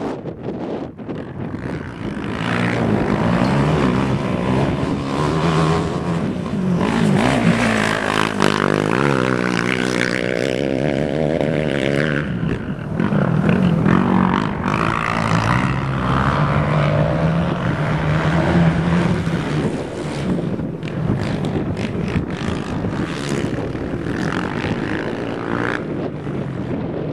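Racing quad ATV engines running hard, their pitch rising and falling as they rev up and shift, with more than one engine heard at once.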